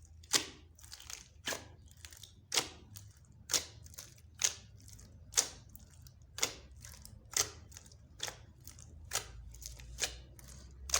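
Mixed slime being worked by hand, giving sharp sticky clicks about once a second.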